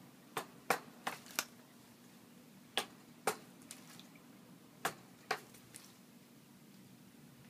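African grey parrot bathing in a shallow water dish, its wings and body flicking the water in short, sharp splashes that come in irregular pairs a fraction of a second apart, about ten in all.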